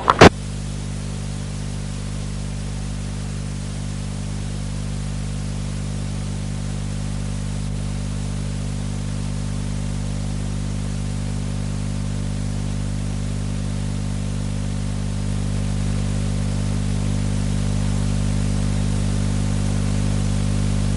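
Steady electrical mains hum, a low buzz with evenly spaced overtones, under a constant hiss on an old videotape sound track that carries no speech. A sharp click comes just at the start, and the hum grows slightly louder about fifteen seconds in.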